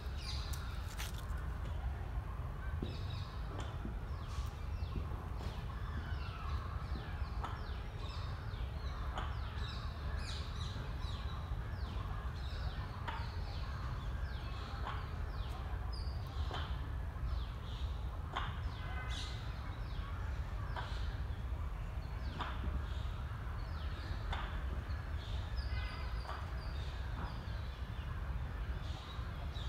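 Many birds calling in the trees: a busy scatter of short, sharp, downward-sliding chirps and calls, several a second, over a steady low rumble.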